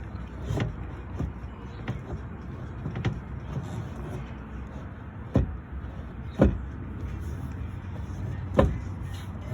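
Scattered metallic clicks and knocks of a screw and tool being worked against the metal inner frame of a car door, the loudest three spaced a second or two apart in the second half, over a steady low rumble.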